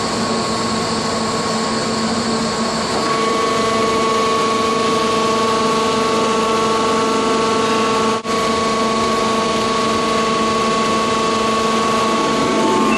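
Hydraulically driven Lewmar captive winch running on its test rig under a full-working-load pull: a steady mechanical whine made of several held tones, which shift slightly and gain higher tones about three seconds in, with a very brief break just after eight seconds.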